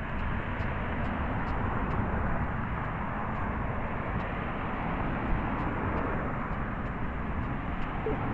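Steady outdoor noise: a low rumble with a hiss above it and no distinct events.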